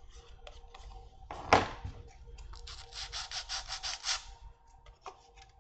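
A single sharp knock about a second and a half in, then a sanding stick rubbed back and forth in about nine quick short strokes over the edge of a small model-kit part.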